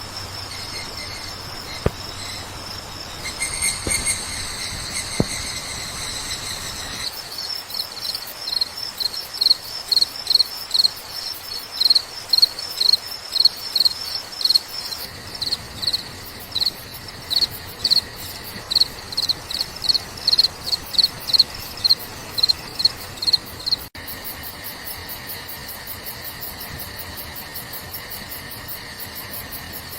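Crickets chirping: a steady high trill, then a cricket chirping in regular pulses about two a second, changing abruptly back to a steady high drone near the end. A few faint clicks sound in the first few seconds.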